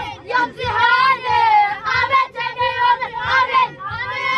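A group of boys singing a chant together.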